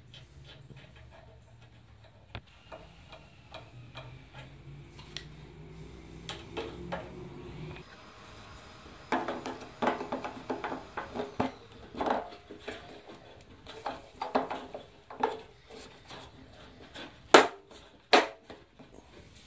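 Plastic clicks and knocks from handling and fitting parts on a 2013 Kia Soul's plastic front bumper cover, coming thicker from about halfway. Near the end come two sharp, loud snaps as a side marker lamp is pressed home into its bezel.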